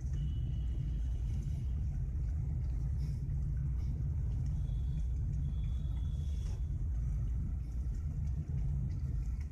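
Steady low rumble of riding in a moving vehicle: road and wind noise on a phone's microphone, with a faint thin high whistle heard twice.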